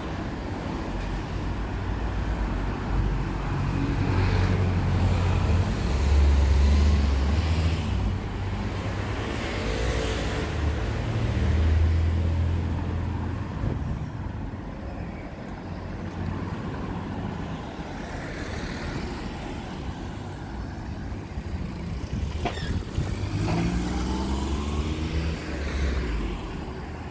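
Cars passing along a city street, several swells of engine and tyre noise one after another, with one car accelerating and its engine note rising about three-quarters of the way through.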